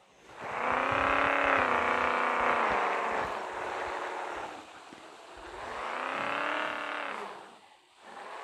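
Car engine revved twice, each rev climbing, held for a couple of seconds and then let back down.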